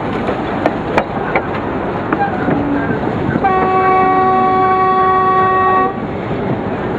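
Narrow-gauge train rolling along with scattered wheel clicks, as heard from a coach. About three and a half seconds in, the train's Lxd2 diesel locomotive sounds one steady horn blast of more than two seconds.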